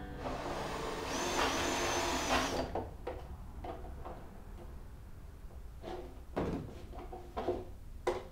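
Power drill with a larger bit boring out a hole in an ABS plastic box, running for about two and a half seconds with a high motor whine that winds down as it stops. Several light clicks and knocks follow.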